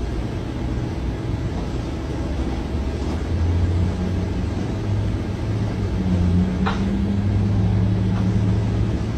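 Low steady rumbling hum that swells a little from about a third of the way in, with a single sharp click about two-thirds through.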